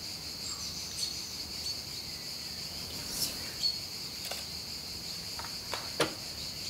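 Steady high-pitched insect chorus, with several sharp clicks of a camera shutter scattered through it.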